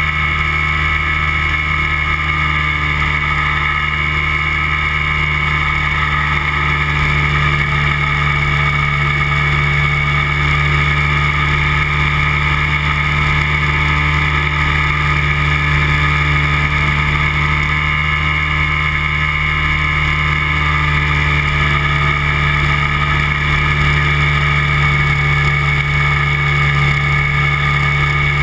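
Flex-wing microlight trike's engine and propeller droning steadily in cruising flight.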